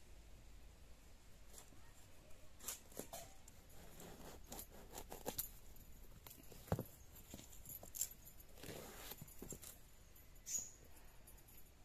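Fresh bottle gourd being cut on a bonti, a curved blade held upright on the floor: irregular short crunching cuts and knocks as the gourd is split and chopped into chunks, the sharpest two close together a little past the middle.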